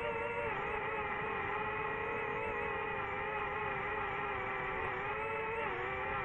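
DJI FPV drone's motors and propellers whining steadily in flight, the pitch dipping and rising slightly with throttle changes about half a second in and again near the end.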